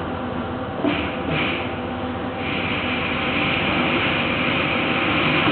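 Steady hum and running noise of factory machinery around a Nachi industrial robot arm palletizing plastic crates. There is a short clunk about a second in, and a hiss comes in from about halfway and holds.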